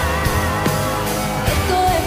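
A live rock band playing with drums and electric guitars, and a voice singing the lead over them.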